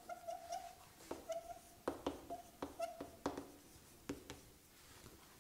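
Chalk writing on a chalkboard: sharp taps as the chalk strikes the board, with short squeaks between them that thin out near the end.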